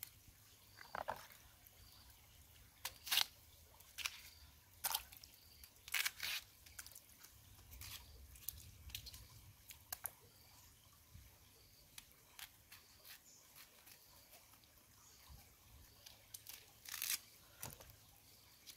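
Irregular crisp snaps and crunches of a banana flower being stripped of its bracts by hand and cut with a small knife, the loudest about three seconds in, around six seconds and near the end.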